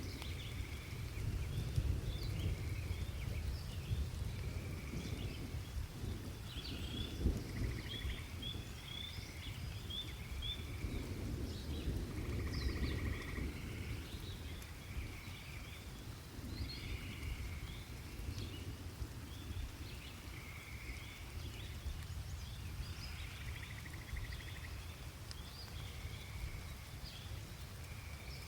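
Several small birds chirping and trilling over and over, over a steady low rumble and light rain.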